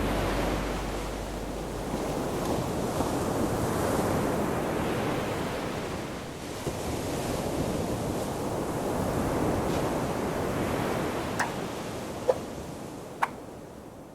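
Ocean surf: waves washing in and drawing back in slow swells, with a steady hiss between them. The sound fades down over the last few seconds, and a few faint ticks come near the end.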